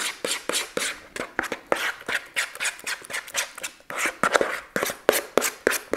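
A utensil stirring a thick mayonnaise, lime and honey dressing in a bowl, scraping and knocking the bowl's sides in quick, regular strokes of about three a second.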